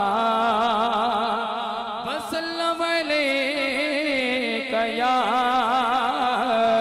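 A man singing an Urdu naat (devotional poem) into a microphone through a sound system, with long held notes ornamented by wavering pitch slides. From about two seconds in, a steady lower note sounds under the voice.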